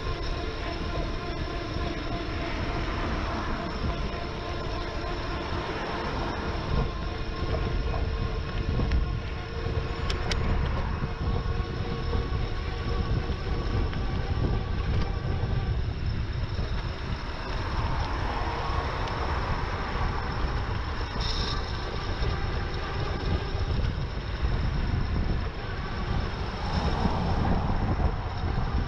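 Wind rumbling over the microphone of a camera on a moving e-bike, with a steady whine of several tones that fades out about halfway through, and swells of passing noise later on.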